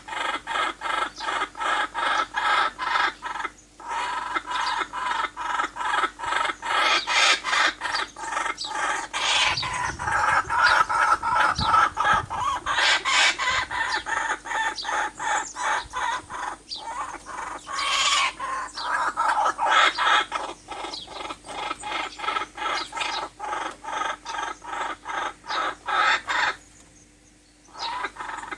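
Birds calling in a dense, continuous chatter of short clucking notes repeated about three times a second, with louder stretches in the middle and a brief pause near the end.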